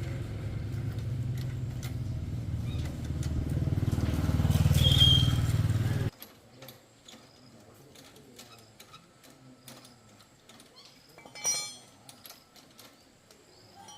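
Motorcycle engine running, growing louder around four to five seconds in with a brief high squeal, then cutting off abruptly about six seconds in. After that come faint clicks and one sharp clink near the end.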